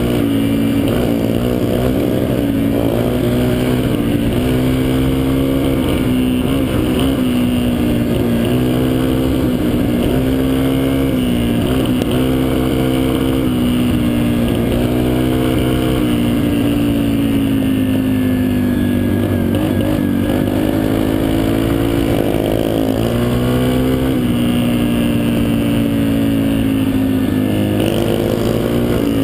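Dirt bike engine running hard on a trail, its pitch rising and falling over and over as the throttle is opened and closed.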